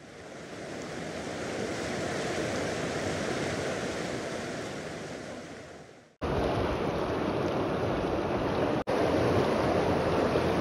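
Rushing river water, a steady noisy roar that swells up and fades out over the first six seconds, then cuts abruptly to a louder rush of water. There is a momentary break just before nine seconds in.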